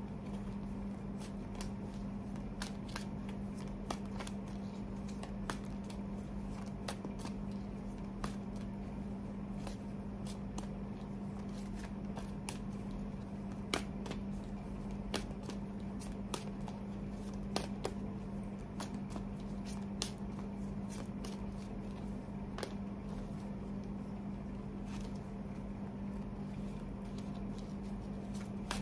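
A deck of tarot cards being shuffled by hand, with scattered, irregular clicks and snaps of the cards. A steady low hum runs underneath.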